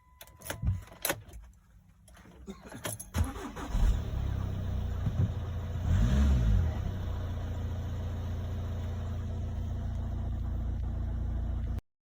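A few sharp clicks, then the VW Touran's 2.0 TDI four-cylinder diesel cranks and starts about three seconds in and settles to a steady idle, with a brief rise and fall in revs around six seconds in.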